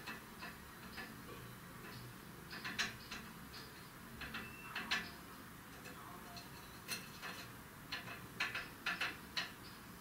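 Blue tit at a feeder making irregular short, sharp ticks, some in quick clusters, with a brief high chirp about four and a half seconds in.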